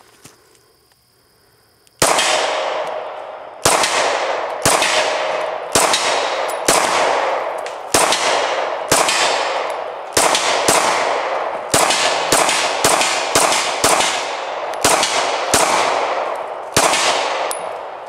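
Glock 22 pistol with a 9mm conversion barrel firing 9mm 124-grain full metal jacket rounds: a string of about seventeen to eighteen single shots starting about two seconds in, each echoing briefly, spaced about a second apart at first and then faster, about two a second, in the middle.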